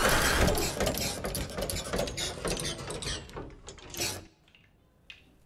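Rappelling gear in use on the descend command: a fast, dense metallic rattling and clicking over the hiss of rope running out. It fades and stops suddenly about four seconds in, and one faint click follows.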